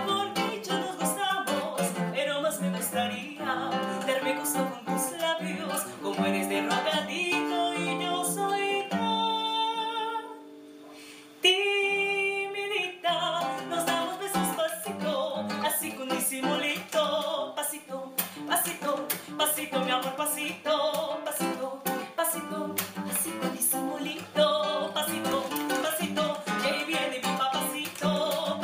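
Acoustic string music with plucked guitar-type strings and singing. About ten seconds in the playing thins to a soft held chord, then a strong held note comes in and the busy plucking resumes.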